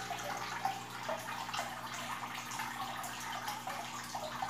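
Aquarium water trickling and bubbling, with small irregular splashes over a low, steady hum.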